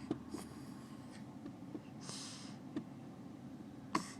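A sleeping baby's noisy breathing, snoring softly: a faint breath near the start and a stronger breathy one about two seconds in, with a few small clicks between.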